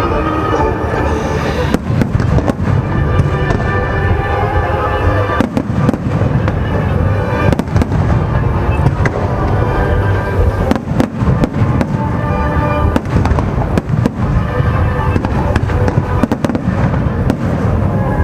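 Fireworks display bursting in rapid succession, with deep booms and crackles following one another without a break, over music playing with the show.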